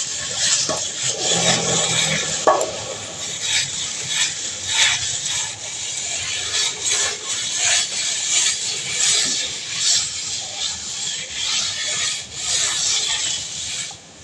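Hand tool scraping and rubbing against a hard surface in repeated, irregular strokes, about one or two a second.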